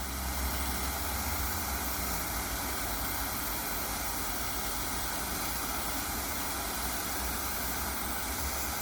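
Handheld torch flame hissing steadily as it heats the tip of a screwdriver.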